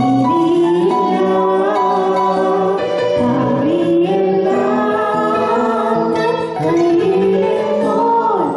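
A woman and a man singing a Malayalam gospel song into microphones over instrumental backing, amplified through the hall's sound system.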